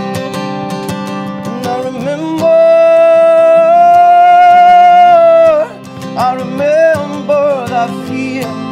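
A man singing over a strummed steel-string acoustic guitar. Near the middle he holds one long, loud note for about three seconds, then sings a few shorter phrases.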